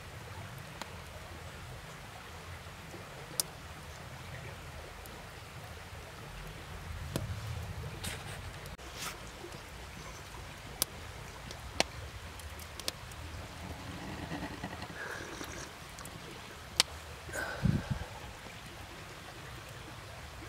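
Quiet outdoor ambience with a steady low hiss and rumble. A few sharp clicks or pops are scattered through it, several seconds apart, and there is a brief louder knock and rustle near the end.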